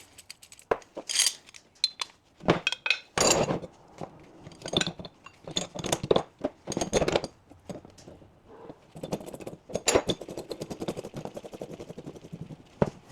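Steel bush-press parts and spanners clinking, knocking and scraping against each other as the press kit is fitted up on a suspension arm, irregular metal knocks with a run of quick light ticks near the end.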